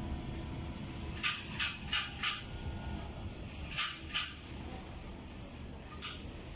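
Steady low background hum of a shop with a few short, hissy rustles: four in quick succession, then two more, then one near the end.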